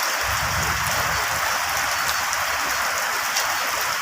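Steady rain falling, an even hiss with many fine drop ticks. A low rumble comes in just after the start and dies away about a second later.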